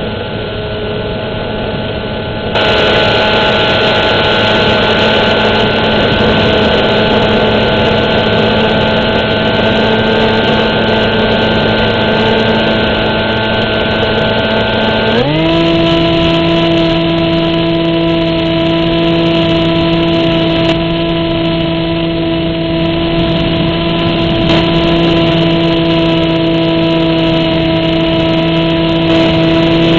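Electric motor and propeller of a Versa RC flying wing, heard from a camera on the plane, running at a steady pitch with air rushing past. About halfway through the pitch jumps up as the throttle is opened, then holds steady.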